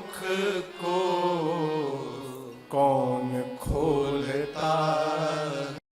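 Solo voice singing a Hindi devotional song in long, drawn-out notes that bend in pitch. It breaks off abruptly just before the end.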